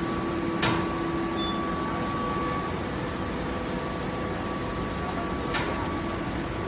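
Automatic horizontal baler running: a steady machine hum with a faint steady whine, broken by two sharp clanks, one about half a second in and one about five seconds later.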